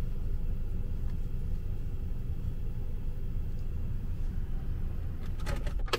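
Steady low road and engine rumble inside a moving car's cabin, with a few short clicks near the end.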